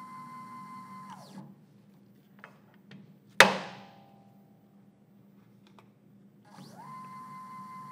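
A single sharp metallic knock with a short ringing decay, after a few faint clicks: a cast iron tombstone on a 4th axis struck at its flange with an aluminum block to shock it over toward center.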